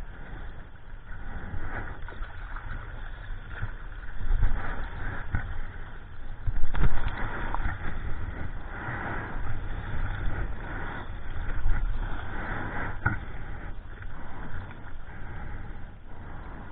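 Sea water splashing and rushing along a 9-foot Ron Jon surfboard as it moves through small waves, heard on a board-mounted action camera with a low rumble on its microphone. The splashing comes in several louder surges.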